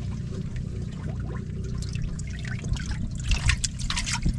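Water splashing and sloshing in a boat's fish hold as a large green grouper is handled among other fish, with the splashing thickest about three to four seconds in. A steady low hum runs underneath.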